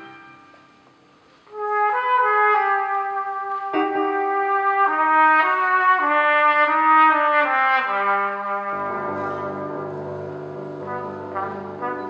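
Cornet solo: after a brief pause, the cornet plays a slow melody of held notes one after another. About two-thirds of the way in, a lower sustained accompaniment comes in beneath it, and quick short repeated notes come near the end.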